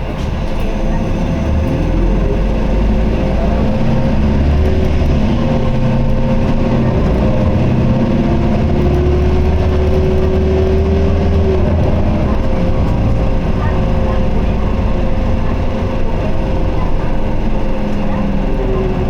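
Isuzu Erga city bus heard from inside while under way, its four-cylinder turbo-diesel pulling with the automated gearbox held in fourth gear in POWER mode. A slight abnormal noise is present over the engine, and a whine rises and falls in pitch around the middle. The heater blower runs underneath.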